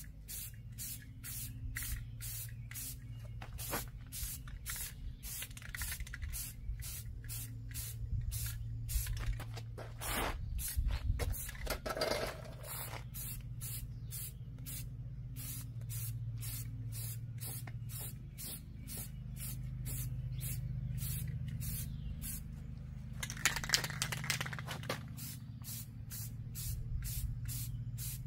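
Aerosol can of automotive primer spraying in short hissing passes, about two a second, with longer sprays near the middle and near the end. A steady low hum runs underneath.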